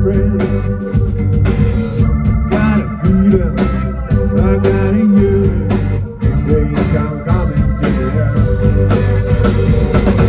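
Live rock band playing with electric guitars and organ over bass and drums.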